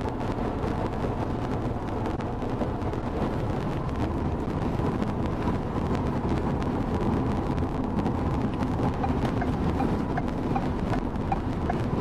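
Strong wind hitting a moving car, heard from inside the cabin together with road noise as a steady low rumble.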